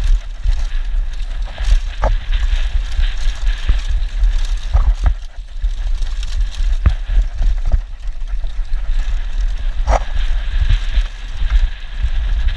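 Wind buffeting a helmet-mounted camera's microphone as a downhill mountain bike runs fast over a dirt trail, with the bike rattling over bumps and several sharp knocks.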